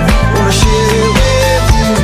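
Upbeat background music with a steady beat and a held, sliding melody line.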